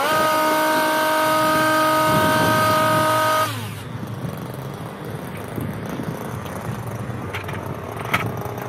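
Stihl HS 82 T two-stroke petrol hedge trimmer running at high revs, then dropping to idle about three and a half seconds in as the throttle is released, the pitch gliding down. The audio is sped up to double speed. Two light knocks near the end as the aluminium stepladder is moved.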